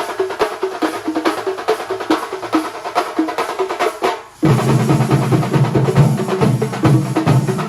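Kerala thambolam percussion ensemble playing fast, even drum strokes. A little after four seconds in the playing breaks off for a moment, then resumes louder with a deep, pitched low part under the strokes.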